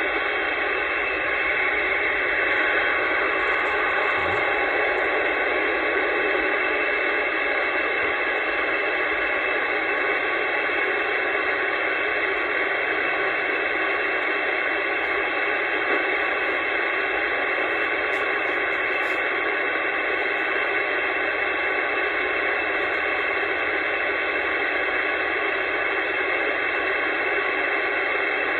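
Steady static hiss from an AnyTone AT-6666 CB radio's speaker, with no voice coming through. The noise sits in the radio's narrow audio band and carries a few faint steady tones.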